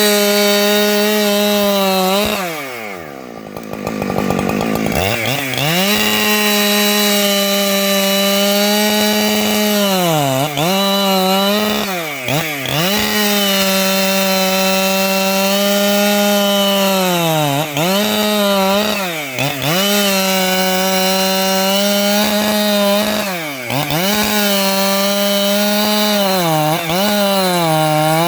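585XP two-stroke chainsaw running at high revs while cutting wood. Its pitch dips and recovers several times, with one longer, deeper drop a few seconds in.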